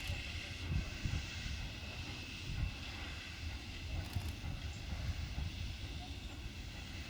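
Steam tank locomotive 141 TB 424, a steady hiss over a low rumble, with a few irregular low thumps in the first three seconds.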